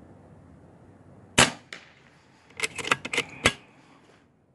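Regulated PCP air rifle in .25 calibre (RTI Priest) firing with a sharp crack about a second and a half in, followed by a quick run of clicks and clacks and a second sharp crack near the end.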